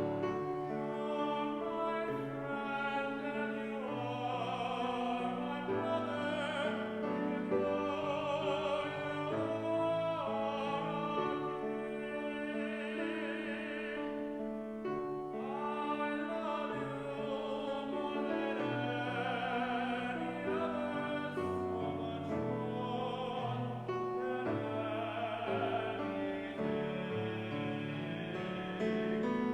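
Solo voice singing in a classical style with strong vibrato, accompanied by piano.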